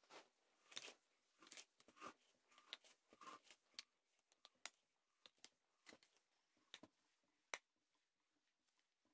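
Faint, irregular clicks and scratchy ticks of a restored book press's screw being turned down through its threaded frame.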